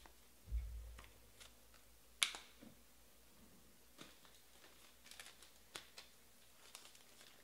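Quiet desk handling noises: a dull thump about half a second in, a sharp click a little after two seconds, then scattered light clicks and ticks.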